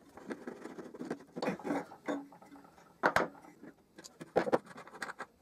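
Screwdriver undoing the bolt of the wooden rear handle on a vintage Stanley No. 4 hand plane, then the handle and its threaded rod being worked free of the cast iron body: scraping and rattling with a few sharp metal clicks.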